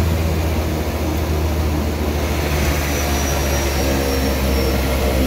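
Propeller plane's engines running at low power while taxiing after landing, heard from inside the cabin: a steady low drone, with a faint high whine that falls slightly about halfway through.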